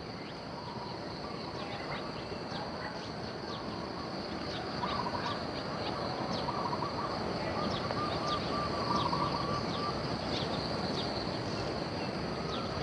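Wild birds calling, with many short falling chirps and a rapid warbling call in the middle, over a steady high-pitched insect drone.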